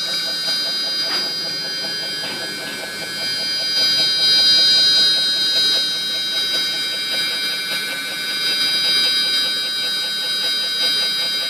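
CNC router spindle running at high speed with a steady, high, multi-toned whine, its 0.5 ball-nose bit cutting wood on a finishing pass. Under the whine there is a fast, even flutter.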